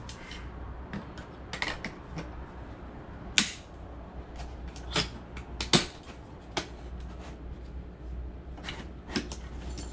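Sharp clicks and knocks of an LED grow light's bars being handled and snapped into its frame, about half a dozen spread through, over a low steady hum.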